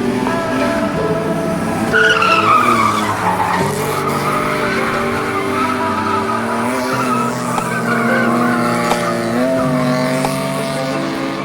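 Rear tyres of a rear-drive Toyota Cressida squealing as the car skids and drifts on its welded, locked differential, with music playing underneath. The squeal is loudest about two seconds in, falling in pitch.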